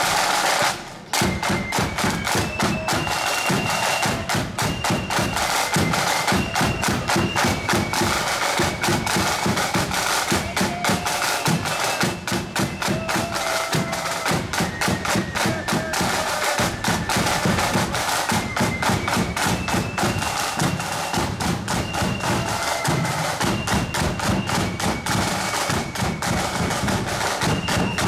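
Marching flute band playing a march: side drums beat a steady, fast rhythm under a high flute melody.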